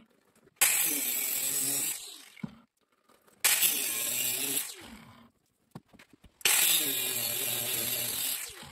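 Angle grinder grinding the steel of a vintage double-bit axehead, reshaping it. It comes in three spells of a second or two each with silent gaps between, the motor's pitch wavering as the disc bites.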